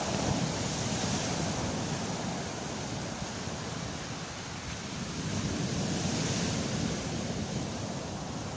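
Stormy Black Sea surf breaking and washing over a sand-and-pebble beach, with two waves rushing in, one right at the start and a louder one about five to seven seconds in.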